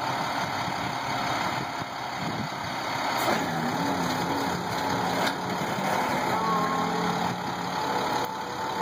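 Flatbed tow truck's engine idling steadily.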